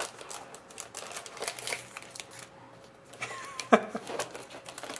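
Trading cards and their packaging being handled: repeated rustling, crinkling and light clicks, with one sharp knock a little past halfway through.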